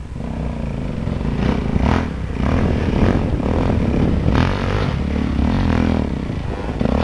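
Off-road dirt bike engine revving under load on a steep dirt climb, getting louder over the first two seconds, with the throttle opened and eased in quick bursts.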